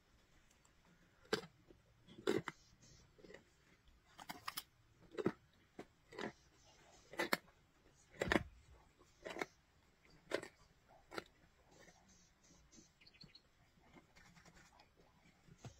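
Lions feeding on a zebra carcass, crunching bone and chewing meat: sharp crunches about once a second, growing fainter after about eleven seconds.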